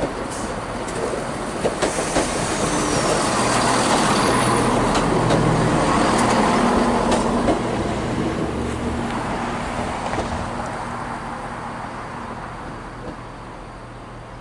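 Class 170 Turbostar diesel multiple unit running past, with its diesel engines droning under a few sharp clicks of wheels over rail joints. The sound builds to a peak about halfway through, then fades.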